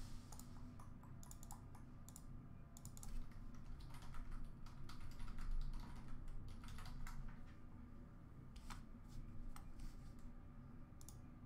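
Quiet computer keyboard typing and clicking, irregular keystrokes scattered through, over a steady low room hum.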